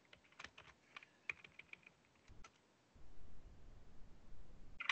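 Faint, scattered computer keyboard keystrokes as a command is typed. A low rumble runs underneath in the second half.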